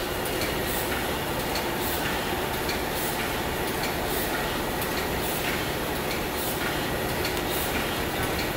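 Automatic plastic tube filling and sealing machine running, a steady mechanical clatter and rumble with a short hiss repeating about every three-quarters of a second as it cycles through tubes.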